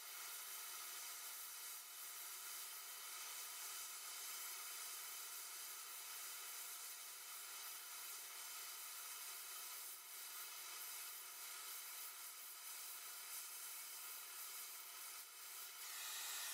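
Oxyacetylene welding torch flame hissing steadily and faintly as it melts a puddle on a steel plate during a surface weld.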